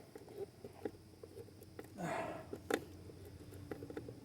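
A hand screwdriver driving a stiff screw into the glove-compartment latch: scattered faint clicks and creaks, with a short strained grunt about two seconds in and a sharper click just after.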